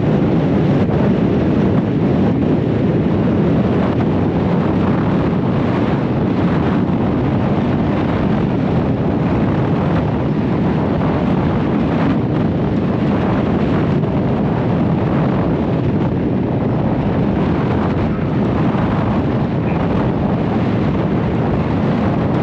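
Steady wind buffeting the microphone on the deck of a moving river cruise ship, a loud rush heavy in the low end, with the low rumble of the ship and the choppy water beneath it.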